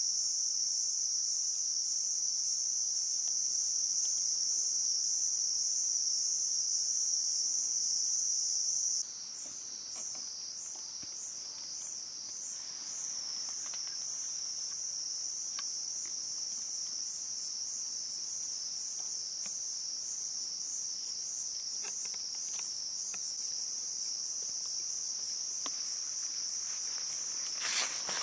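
Insect chorus: a steady, high-pitched buzzing drone that shifts about nine seconds in to a wavering, pulsing buzz. A few faint clicks are heard over it, and a brief louder rustle comes near the end.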